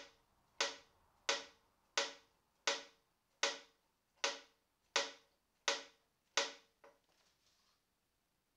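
Violin clamped in a measuring rig being tapped about ten times, at a steady pace of a little more than one tap a second, each tap a sharp knock with a short ringing tail from the violin's body, ending with a weaker tap. The taps excite the instrument so that the microphone can record its sound radiation.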